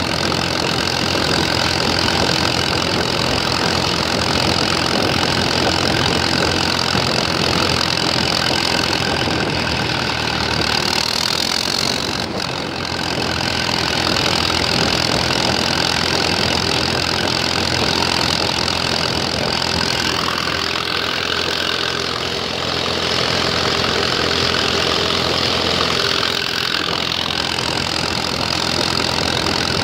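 Allis-Chalmers WC tractor's four-cylinder engine running steadily as the tractor drives along the road, heard from the tractor itself, with two brief slight dips in loudness.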